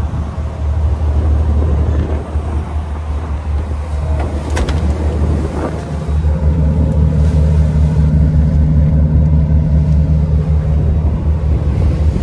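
Fishing boat's engine running under way, a steady low rumble mixed with the rush of water from its wake. A couple of short knocks come about halfway through, and after them a steady low hum from the engine joins in.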